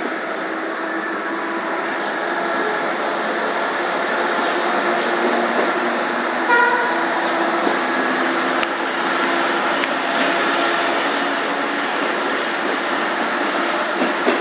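Commuter train running along the track, heard from inside a carriage: a steady loud rolling noise with a faint high whine that slowly rises. A short high-pitched squeal comes about halfway through and again at the very end.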